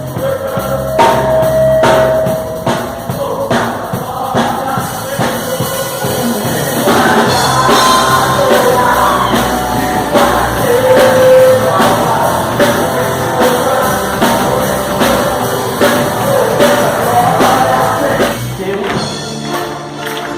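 Gospel rock song: a sung lead vocal over a drum kit and band.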